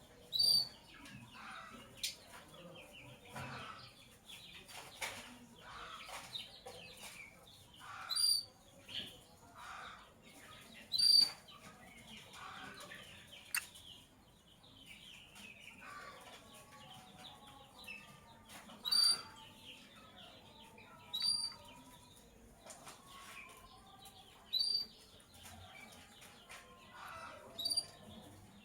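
Lovebirds calling: about seven loud, sharp, high-pitched shrieks a few seconds apart over steady softer chattering and twittering, with a few sharp clicks.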